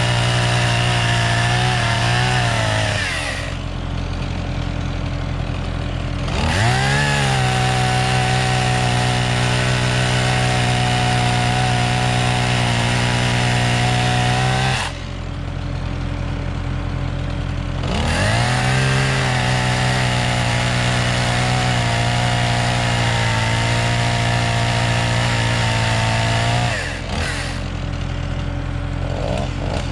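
Gasoline chainsaw bucking oak logs into firewood lengths. It runs at full throttle for several seconds at a time, then drops back to idle for a few seconds between cuts, three times over, and revs up again at the end.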